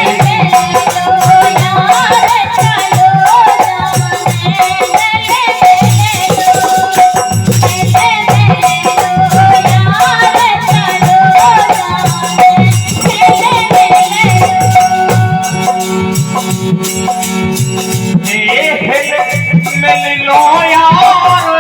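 Instrumental break in an Indian folk song: a melodic instrument plays a wavering, ornamented tune over a driving rhythm of hand drum and constant shaken rattles. About eighteen seconds in, the melody moves up into a new phrase.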